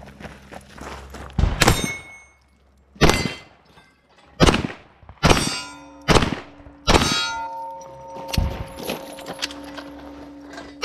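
Pistol shots fired about a second apart, each followed by the clang of steel targets being hit, about seven in all. The struck plates ring on with a steady tone after the later hits, with one more shot and clang at the very end.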